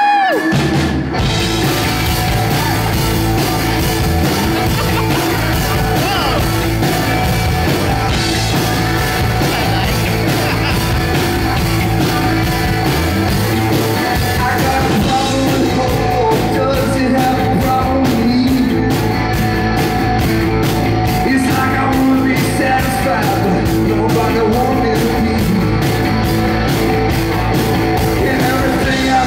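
Live rock band playing loud and amplified: electric guitars, bass guitar and drums. About halfway through, a steady cymbal beat comes in on the drums.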